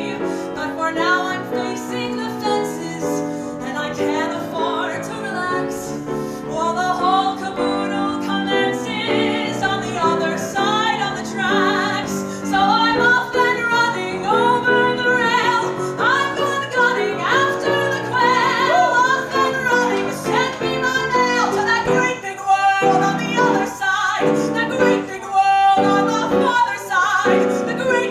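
A woman singing a musical-theatre song with piano accompaniment, holding long notes with vibrato.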